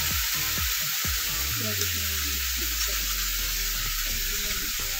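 Diced potatoes and onion frying in hot oil in a wok, sizzling steadily.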